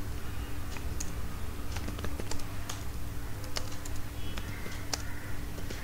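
Typing on a computer keyboard: irregular, unevenly spaced key clicks over a faint steady hum.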